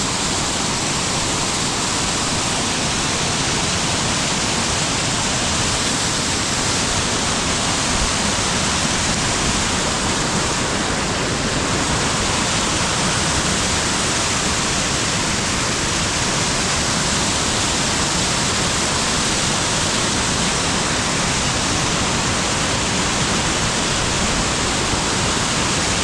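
Small waterfall's rushing stream: loud, steady, unbroken water noise.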